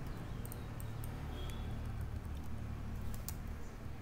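Steady low background hum with a few faint, sparse clicks of a computer mouse and keyboard while an equation is copied and pasted.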